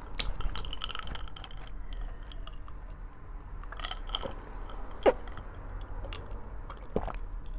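Close-up mouth sounds of a person chewing a meal of rice, corned beef and fried eggplant, with soft wet smacks and small clicks throughout. A single sharp click stands out about five seconds in.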